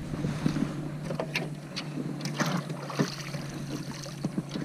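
Scattered small knocks and clicks of handling on a plastic fishing kayak while a bass is held, with water splashing beside the hull.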